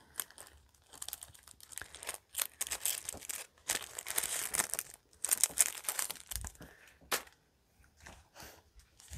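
Clear plastic packaging crinkling and tearing in irregular bursts as a bagged item is handled and opened by hand, with one short sharp crackle about seven seconds in.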